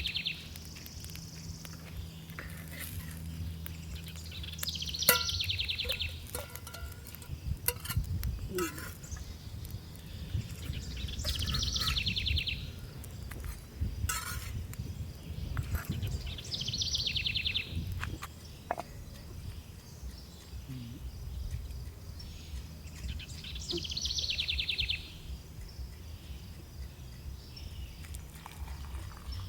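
Rural outdoor ambience: a high, rapid trilling call lasting about a second repeats roughly every six seconds, over a low rumble with scattered clicks and knocks.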